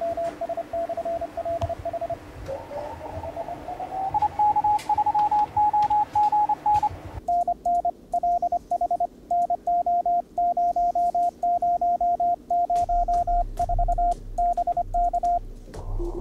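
Morse code (CW) tone from an amateur radio transceiver, keyed on and off in dots and dashes over band hiss. A few seconds in, the tone glides up in pitch and then keys at a higher pitch. About seven seconds in, the hiss drops away and a lower tone keys on and off.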